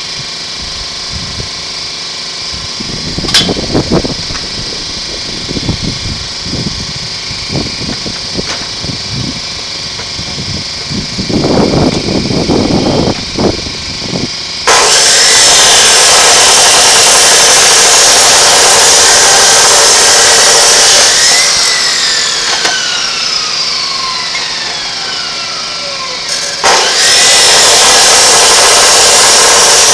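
Abrasive chop saw cutting into the steel shell of a scroll compressor: a loud, steady grinding that starts abruptly about halfway in. Before it come clunks of the compressor being handled and clamped in the saw's vise. Partway through, the saw motor winds down with a falling whine, then the loud cutting starts again near the end.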